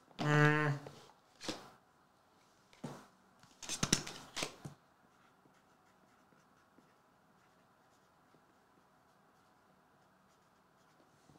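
A brief voiced sound from a man at the very start, then a few short crisp rustles and taps of trading cards and paper being handled, thickest about four seconds in. After that comes faint, quiet scratching of a pen writing on a card.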